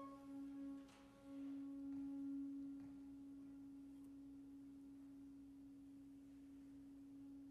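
One instrument of a wind ensemble holding a single soft, nearly pure note, with a short break about a second in before the note carries on steadily.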